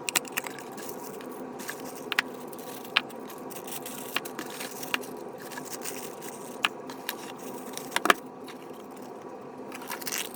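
Handling noise: scattered sharp clicks and light scraping over a steady low hum, the loudest click about 8 seconds in.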